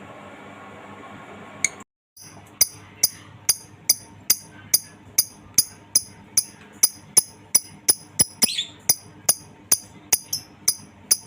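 Lovebird 'ngekek' call: a long run of sharp, high-pitched chirps at about two to three a second, beginning about two seconds in after a steady hum that cuts off.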